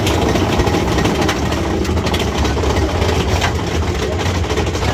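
Mine-train roller coaster (Big Thunder Mountain Railroad) running along its track: a loud, steady rumble.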